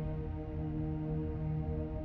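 Slow ambient background music: soft, steady sustained tones with a low tone that swells and fades about once a second.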